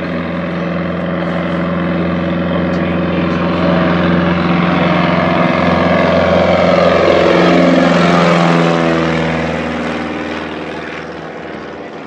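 A floatplane's 150-horsepower Lycoming piston engine and propeller running at full power, a loud drone that builds to a peak about eight seconds in, then drops in pitch and fades as the plane passes.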